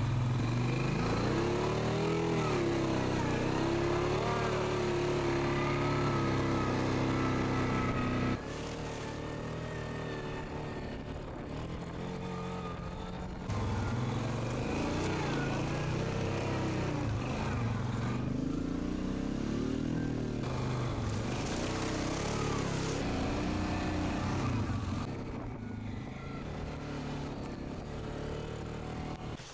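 Yamaha ATV engine running under load on a rough muddy track, heard from the rider's seat, its pitch rising and falling as the throttle changes. The level drops suddenly about eight seconds in and comes back up about five seconds later.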